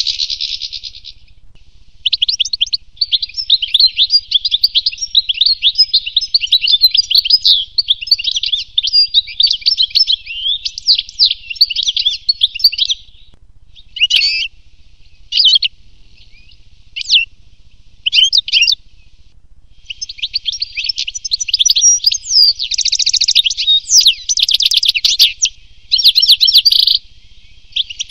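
European goldfinch singing: long runs of quick, twittering notes. Around halfway they break into a few short separate calls before the dense twittering picks up again.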